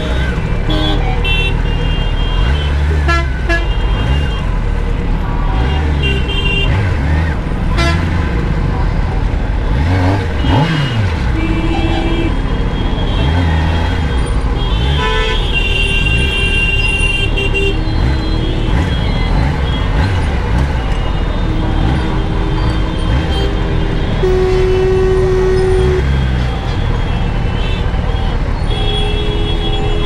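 Kawasaki Ninja ZX-10R's inline-four engine revving up and down as it rides through traffic. Vehicle horns honk repeatedly around it, several held for a second or two.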